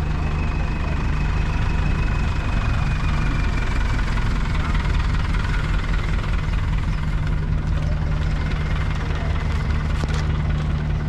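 Heavy diesel engine running steadily at idle, a constant low hum.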